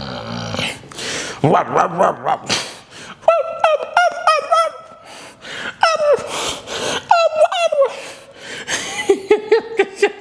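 A man's wordless vocal cries, short and falling in pitch, come in clusters through the middle, followed by a quick run of laughter-like pulses near the end.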